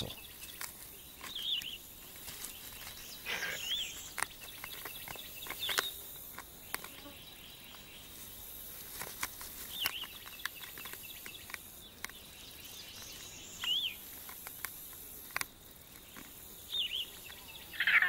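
Raccoon's claws scratching and clicking on a box turtle's closed shell, with soft rustles in the grass. Short bird-like chirps come every few seconds over a faint insect hiss.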